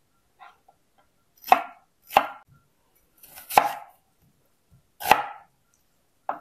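Chef's knife chopping vegetables (red bell pepper, then an onion) on a mango wood cutting board: about six separate strokes, each a sharp knock of the blade on the wood, roughly one a second.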